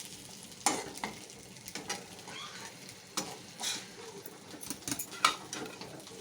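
A metal spoon scraping and knocking against a pan as cooked capsicum masala is scooped out into a dish, several sharp clinks over a faint sizzle from the pan.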